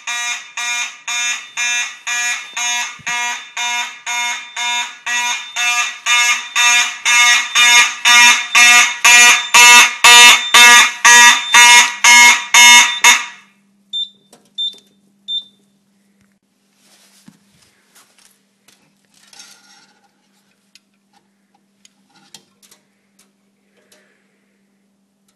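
Several Simplex fire alarm horns sounding in march time, about two blasts a second, growing louder toward the middle. They cut off about 13 seconds in, and three short high beeps follow.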